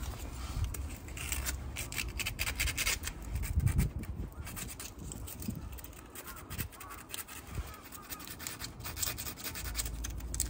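Hand-sanding the cut edge of a black plastic clamp with sandpaper to take off the burrs: irregular short scratchy rubbing strokes. Wind rumbles on the microphone now and then.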